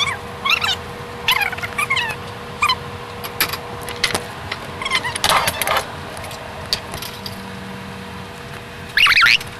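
Dishes and cutlery clinking and clattering as a dishwasher is unloaded. The audio is sped up four times, so it comes as quick sharp clicks mixed with high, chirpy pitch glides over a faint steady hum.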